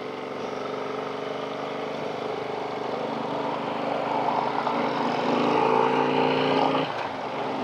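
Harley-Davidson Street Glide's V-twin engine running under way, its pitch and loudness climbing slowly as it accelerates, then dipping briefly about seven seconds in before picking up again.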